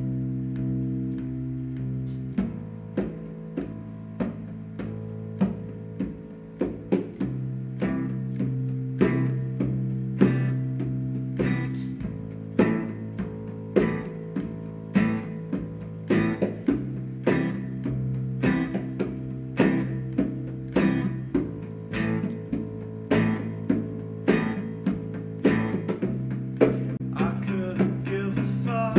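Acoustic guitar strummed in a steady rhythm, with sharp strums about twice a second, over an electric bass holding long low notes that change every couple of seconds. There are no vocals.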